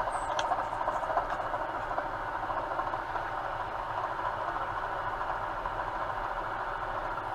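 Milling machine's spindle running steadily while center-drilling holes in a circle on a workpiece.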